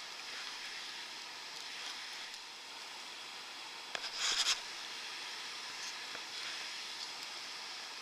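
Steady rush of river water running over rapids below a weir. About four seconds in, a click and a brief rustle of handling close to the microphone.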